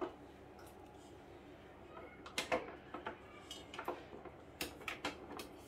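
Scattered light clicks and knocks, about eight in three seconds, as a wire balloon whisk is fitted onto the drive shaft under the raised head of a tilt-head stand mixer. The mixer is not running.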